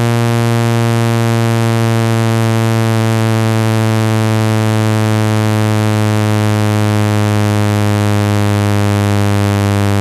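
Steady low buzzing electronic tone, unchanging in pitch and loudness, rich in overtones: a speaker water-ejection tone meant to vibrate a phone speaker and shake trapped water out of it.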